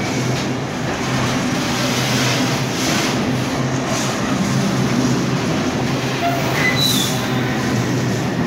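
Container wagons of an intermodal freight train rolling past: a steady, loud rumble of steel wheels on rail, with a brief high squeal about seven seconds in.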